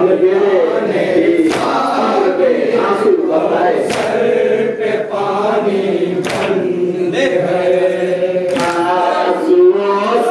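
A group of men chanting a noha, a Shia mourning lament, together in unison, with a sharp strike cutting through about every two and a half seconds.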